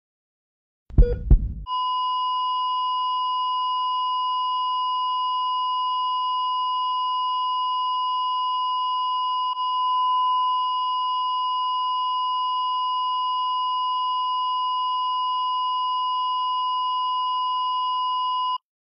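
A short low boom about a second in, then a steady, unwavering electronic tone held for about seventeen seconds, cutting off suddenly near the end.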